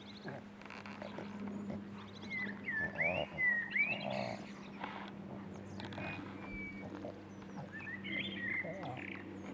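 Six-week-old Boston terrier puppies whining and squeaking in short, high cries that bend up and down, busiest about three to four seconds in and again near the end. A steady low hum runs underneath.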